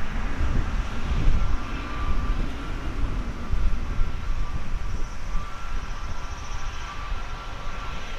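Airbus A320neo's Pratt & Whitney PW1100G geared turbofan engines during the landing rollout as the airliner slows on the runway: a steady low rumble with a thin, steady whine of fan tones.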